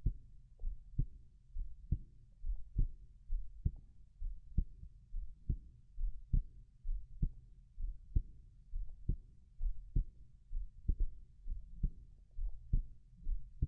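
Human heartbeat, a steady run of soft low lub-dub thumps at about one beat every 0.9 s.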